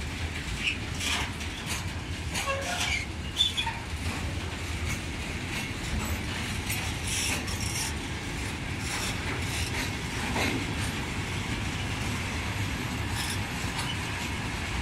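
Freight train wagons rolling past: a steady rumble of steel wheels on rail, with scattered clacks over the rail joints and short wheel squeals about two to four seconds in.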